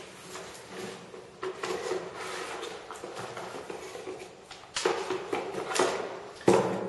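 Cardboard packaging rustling and scraping as a speaker and its cable are lifted out of the box. Three sharp knocks come in the second half, the last one the loudest.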